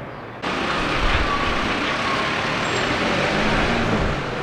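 A steady rushing noise that cuts in abruptly about half a second in and holds at an even level.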